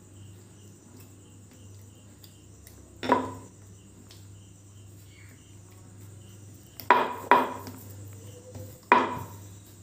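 A wooden rolling pin knocking on a wooden board while stuffed dough is pressed and rolled out. There are four sharp wooden knocks: one about three seconds in, a quick pair near seven seconds and one more near nine seconds.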